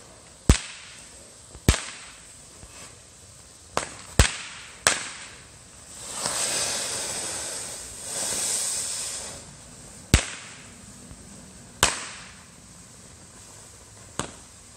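Consumer fireworks going off on the ground: eight sharp bangs at uneven intervals, with two stretches of hissing crackle in the middle.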